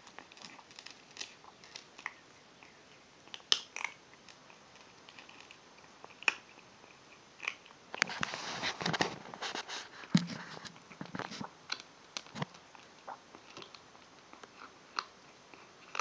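A kitten crunching dry kibble: irregular sharp crunches throughout, with a denser run of chewing about halfway through.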